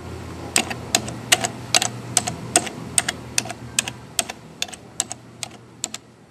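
Computer keyboard keys clacking in an uneven typing rhythm, about four keystrokes a second, over a low steady hum.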